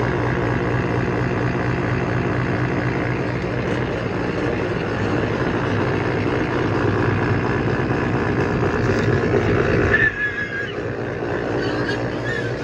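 Tractor engine running at a steady working speed while it powers the Grain-O-Vator's hydraulic auger filling a pig feeder with grain. About ten seconds in, the low engine note drops away sharply, and two brief high squeaks follow near the end.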